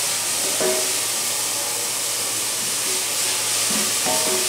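Finely chopped onions sweating in olive oil in a stainless steel saucepan, a steady sizzle and hiss as the salted onions give off their water, stirred with a spatula.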